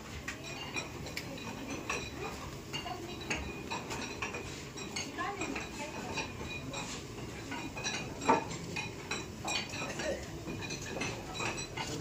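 Irregular clinking and knocking of house-lifting work: steel screw jacks being cranked and bricks being set under a concrete roof slab as it is raised.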